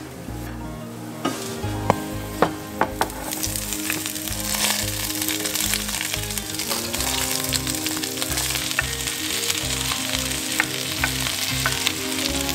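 Chopped Swiss chard and stems sizzling in hot oil as they are scraped off a wooden cutting board into a skillet of sautéing garlic. A few sharp knocks come in the first three seconds, then a steady sizzle sets in from about three seconds in.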